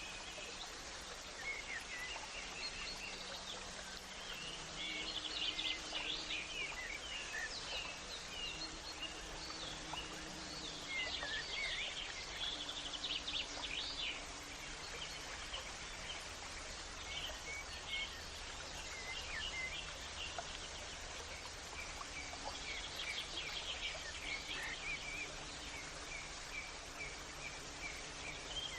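Many small birds chirping and trilling in short, rapid calls, one over another, over a steady background hiss.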